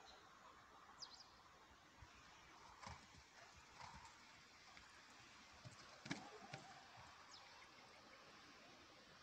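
Faint, distant horse working over ground poles on a soft arena surface: a few soft, irregular hoof knocks over near silence, the loudest about six seconds in.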